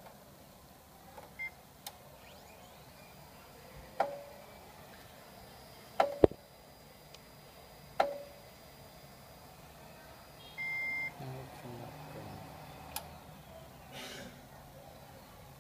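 HP LaserJet Pro M225dw laser printer: a short control-panel beep, then four sharp mechanical clacks spaced about two seconds apart, then a longer alert beep. The printer goes on to report 'Add paper' although paper is loaded, so the clacks fit failed paper-feed attempts.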